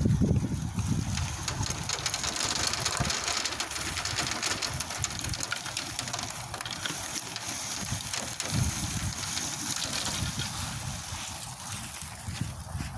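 Rolling nut gatherer pushed over a yard, giving a steady rustling hiss dense with small clicks and rattles as its wire cage runs over leaves, debris and acorns.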